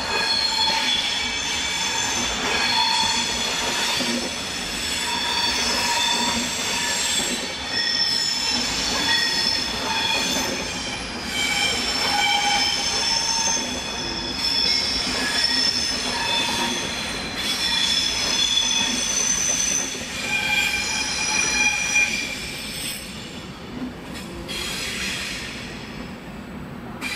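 Steel wheels of slow-moving trains squealing on the curved tracks and switches of a station throat. Many high-pitched squeals overlap and shift in pitch over a low rolling rumble, dying down near the end.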